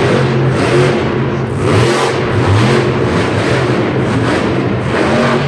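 Monster truck engine running hard and revving across the dirt, its pitch dipping and climbing again about two seconds in.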